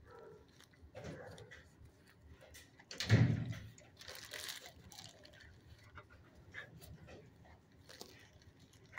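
Dog sniffing and snuffling along the kennel floor while searching for treats, with a louder, sharper sound about three seconds in.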